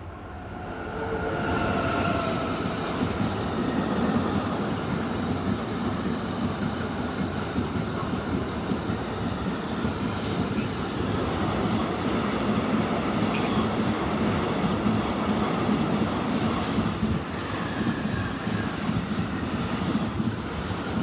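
Container freight train hauled by a Siemens Class 189 electric locomotive passing close by. The sound swells as the locomotive goes past in the first two seconds, with a brief whine. Then the wagons roll past in a steady rumble and rattle of wheels on rail, with scattered clicks.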